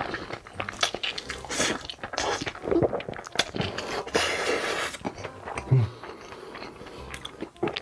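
A person biting into and chewing food close to the microphone, with irregular crunchy clicks.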